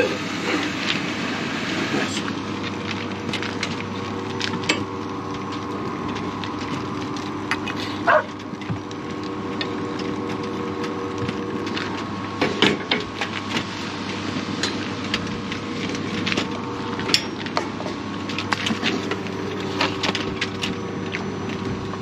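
Espresso-making at a Fracino commercial espresso machine: short clicks and knocks of the portafilter, tamper and cups on the wooden counter over the machine's steady hum, with an espresso shot being pulled.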